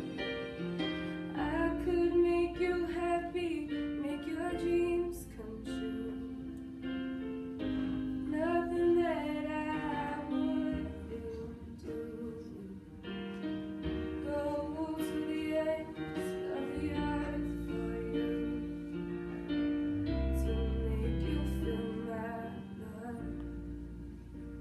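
A girl singing solo, holding notes with vibrato, over instrumental accompaniment with a bass line.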